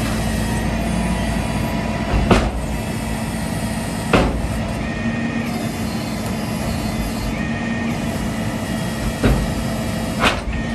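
Rollback truck's engine running steadily while its tilted bed lets a steel storage container slide to the ground, with four sharp knocks, the loudest about two and four seconds in.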